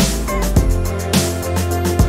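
Background music with a steady beat: drum hits about twice a second over a held bass line.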